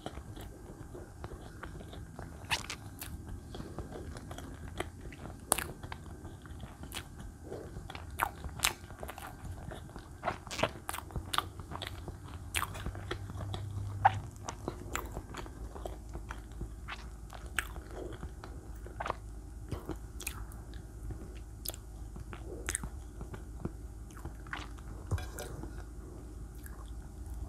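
Close-miked chewing of soft chocolate-glazed sponge layer cake, with many sharp mouth clicks at irregular intervals.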